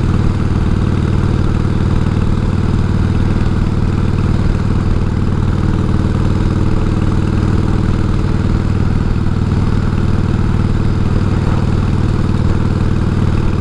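1988 Harley-Davidson Heritage Softail's 1340 cc Evolution V-twin engine running at a steady cruising speed, heard through a helmet microphone with road and wind noise. The engine note holds one pitch throughout.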